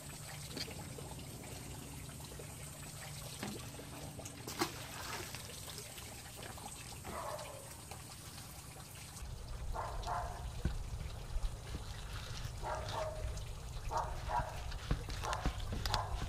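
Water trickling steadily at a fish-cleaning table. Past the middle come a run of short rasping sounds about a second apart.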